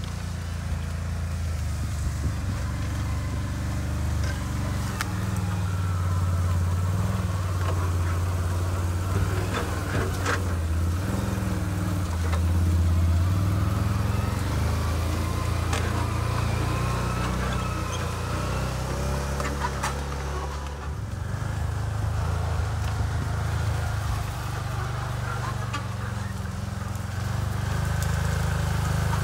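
Can-Am 6x6 ATV engine running under load as it tows a trailer of firewood through brush, getting louder over the first few seconds as it comes closer, with its engine note rising and falling a little.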